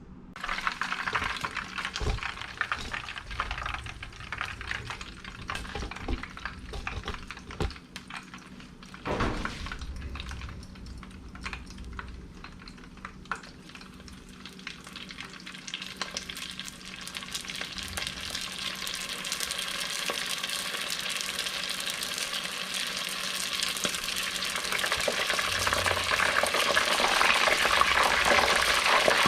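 Egg rolls deep-frying in hot oil, with a dense crackling sizzle that starts suddenly and grows louder toward the end. A few knocks sound in the first ten seconds.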